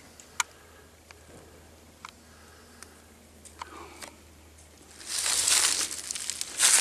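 A few faint snaps and ticks, then from about five seconds in, loud crunching and rustling of footsteps through dry leaves and brush.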